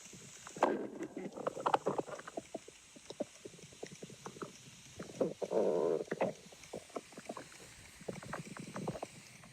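Stomach growling: gurgling rumbles, one about a second in and a louder one about halfway through, amid many small clicks and crackles.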